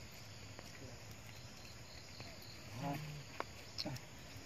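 Insects buzzing and trilling steadily in the forest. About three seconds in there is a short voice-like call, followed by a few sharp clicks.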